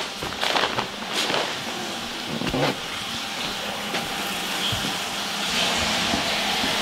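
Rustling and handling noise from a handheld camera being moved about, with a few soft knocks in the first three seconds, over a steady hiss that grows a little louder near the end.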